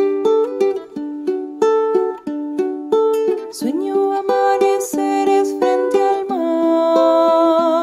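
Background music: a plucked string instrument playing a quick, lively melody, and near the end one long held note with vibrato.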